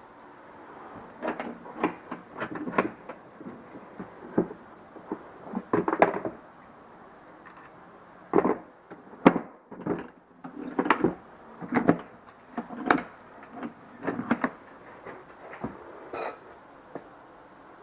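Irregular knocks and clicks of hard objects being handled and bumped, some in quick clusters.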